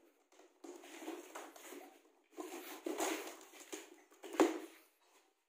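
A blade slitting the tape on a cardboard box and the flaps being pulled open, heard as bursts of scraping and rustling, with one sharp knock near the end.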